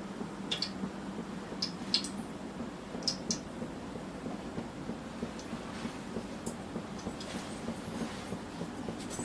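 Cooking oil heating in a kadai on the stove, with a low steady hum and scattered small ticks and crackles as the oil comes up to frying temperature.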